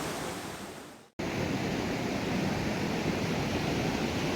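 Steady rush of river water. It fades away about a second in, stops for a moment, then comes back abruptly and carries on steadily.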